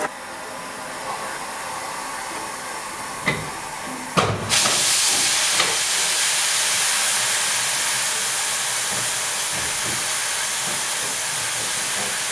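Steam locomotive hissing steam. Two sharp knocks come a little after three and four seconds in, and then a louder, steady hiss of escaping steam starts and carries on.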